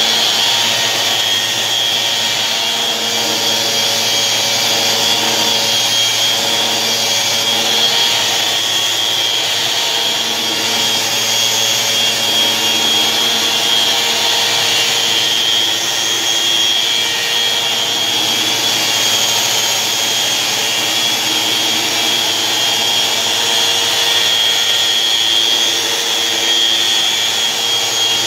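Electric sander running steadily on a wooden tabletop, a continuous whir with a high whine over it.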